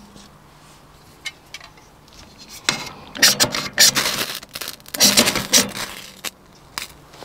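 Ferro rod scraped with a striker in two bursts of quick, sharp strokes, throwing sparks onto curled wood shavings to light them, with a few light clicks before and after.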